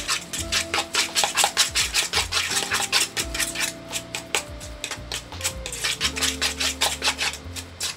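A utensil whisking a canned-chicken, parmesan and egg mixture in a plastic bowl, with rapid, repeated scraping and clicking strokes. Background music plays underneath.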